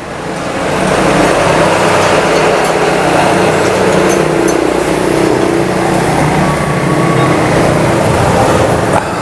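Road traffic: a motor vehicle's engine running close by over steady traffic noise, growing louder over the first second and then holding.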